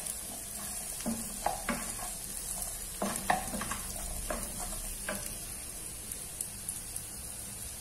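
Carrot sticks and onions being stirred in hot oil in a frying pan with a spatula: irregular scrapes and taps against the pan over a steady faint sizzle, the strokes thinning out after about five seconds.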